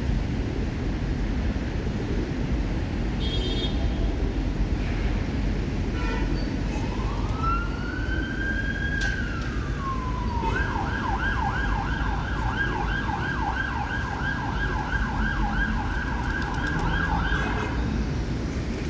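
Emergency vehicle siren: one wail that rises, holds and falls, then a fast yelp rising and falling about twice a second, which stops near the end. A steady low rumble runs underneath.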